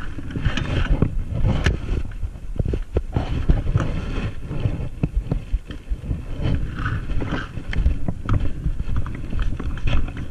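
Rumbling wind buffeting and clothing rubbing on a body-worn camera as the wearer moves and crouches, with scattered knocks and clicks.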